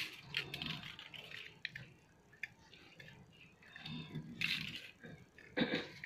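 Light clicks and scratches of thin wire being threaded and wrapped around the metal umbrella-rib tines of a hand-made shrimp spear, with a louder knock about five and a half seconds in.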